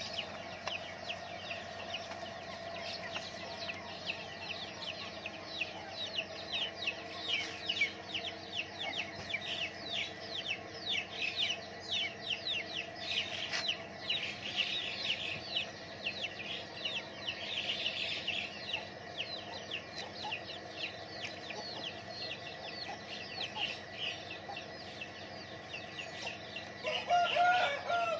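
Chickens: a dense stream of high chirping throughout, and a louder clucking call about a second long near the end.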